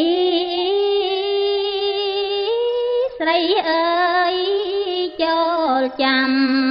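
Khmer smot, Buddhist chant sung by a woman's solo voice, holding long notes that waver and slide in ornaments, with brief breaks about three and five seconds in.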